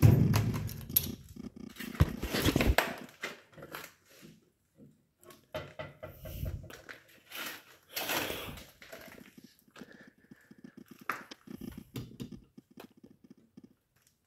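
Irregular rustling and crunching movement and handling noise, loudest at the start and again about two seconds in, with scattered sharp clicks and knocks.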